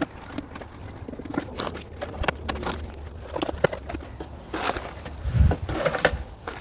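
Nylon zip-tie body panel pegs being handled and pushed through holes in a plastic trim panel: irregular small clicks, rattles and scrapes of plastic, with a heavier knock near the end.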